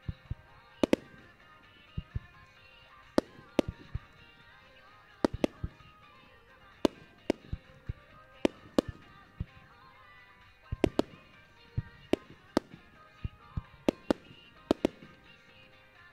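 Aerial fireworks shells bursting in dozens of sharp bangs, irregular and often in quick pairs, about two a second, over music of a pyromusical synchronised with the fireworks.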